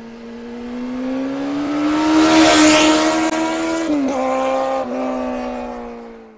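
Engine sound effect on the logo end card: a motor vehicle engine pulling past, its pitch and loudness climbing to a peak, then a drop in pitch about four seconds in, before it fades out.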